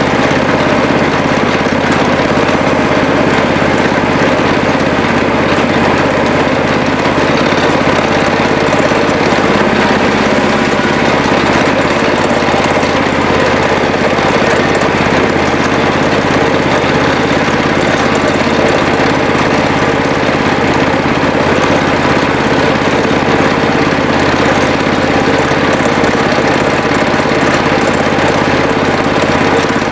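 The small engine of a miniature railway locomotive running steadily, heard from the driving position as the train rolls slowly along.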